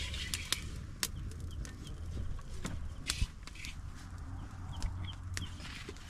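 Open wood fire crackling, with sharp irregular pops and snaps as dry branches are pushed into the flames.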